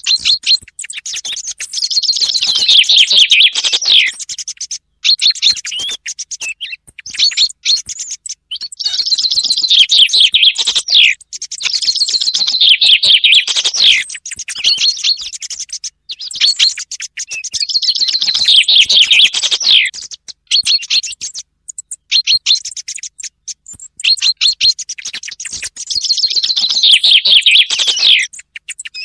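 Recorded common chaffinch song mixed with softer song thrush phrases. Falling trills about two seconds long repeat every few seconds, with shorter, fainter phrases in between.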